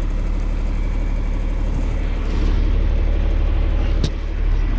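Tractor engine running steadily while a round baler wraps a bale in net wrap, with a single sharp click about four seconds in.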